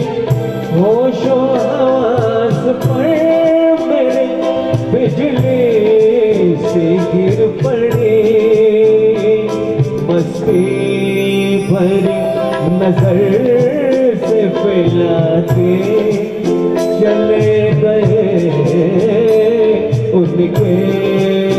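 Live ghazal music from a small ensemble of tabla, keyboards and violin, with a melody that slides and wavers over a steady accompaniment.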